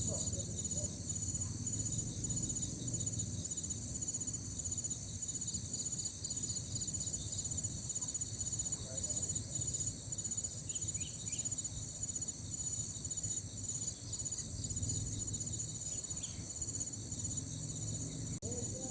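Insects chirping in a steady high-pitched chorus of several overlapping pulsing trills, over a low steady rumble of background noise. One sharp click near the end.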